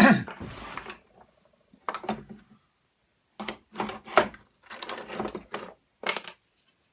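Tools and parts being handled on a workbench: a sharp knock at the start, then scattered clicks and clatters of small hard objects being picked up and set down.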